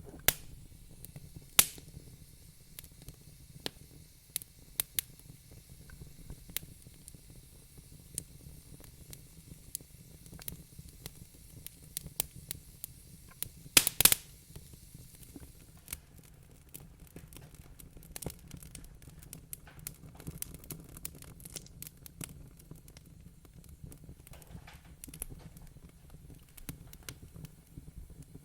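Wood fire crackling in a fireplace: irregular sharp pops and snaps over a low steady rumble, with a louder pop about a second and a half in and a burst of loud pops about halfway through.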